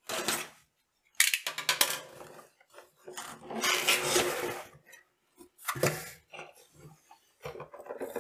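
Cardboard shipping box being slit open with a utility knife and unpacked: sharp clicks and knocks of cardboard and knife, with a longer rasping scrape a few seconds in.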